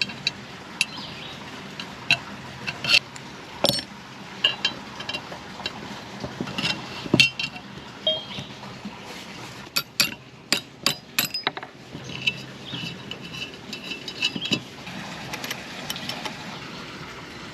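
Small metal fasteners and hand tools clicking and clinking against a bicycle while missing screws and nuts are fitted. The clicks come irregularly, with clusters around the middle.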